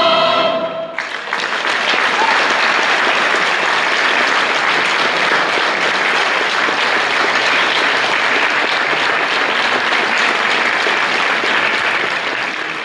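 A choir's last held chord ends about a second in, and an audience breaks into steady applause that carries on for the rest of the time.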